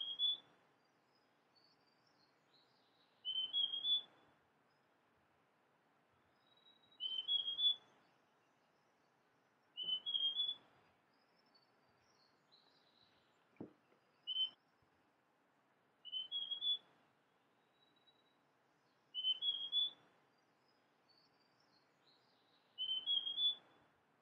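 Male large niltava (Niltava grandis) singing: short phrases of three rising notes, repeated about every three seconds, some eight times. Fainter high calls from other birds sound between the phrases, and there is a single click near the middle.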